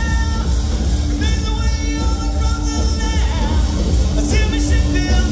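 A rock band playing live through a PA: drums, bass and electric guitars, with long held lead notes over the top that bend in pitch.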